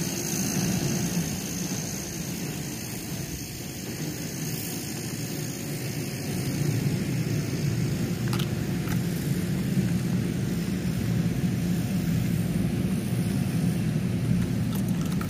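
Passenger train cars rolling slowly past, a steady low rumble of steel wheels on the rails, with a few sharp clicks about eight and nine seconds in and again near the end.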